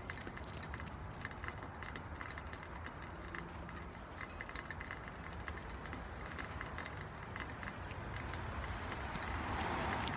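Outdoor background noise: a steady low rumble with faint scattered clicks, swelling a little near the end.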